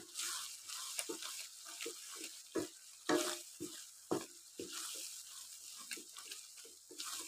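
Wooden spoon stirring and scraping a wet onion-tomato masala around a frying pan, short irregular scrapes and knocks about twice a second over a faint sizzle as the spices are mixed in.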